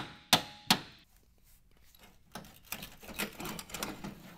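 Two sharp knocks in the first second as a car's front bumper is struck to free it from its brackets, then irregular scraping and rattling from about two seconds in as it is worked loose.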